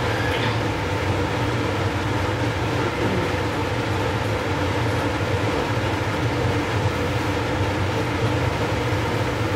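Blower of a laminar-flow clean bench running: a steady airy drone with a strong low hum and a few steady tones above it.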